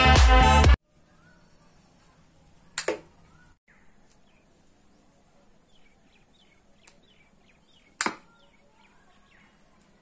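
Electronic music cuts off under a second in. Then a homemade syringe gun fires twice, two sharp snaps about five seconds apart, each with a short ringing tail, with faint bird chirps between them.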